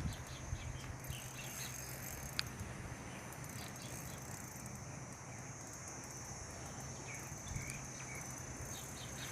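Insects chirring steadily in the background, with a faint low hum under it and one sharp click about two and a half seconds in.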